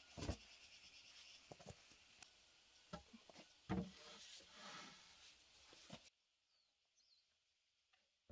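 Bamboo poles knocking and scraping as a pole is pushed into a bamboo roof frame: a handful of sharp hollow knocks over a steady high hiss. About six seconds in, the sound cuts to near silence with a few faint high chirps.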